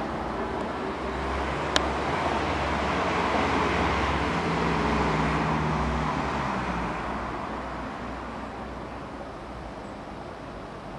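A motor vehicle's engine and tyres passing by, growing louder to about the middle and then fading away. A single sharp click about two seconds in.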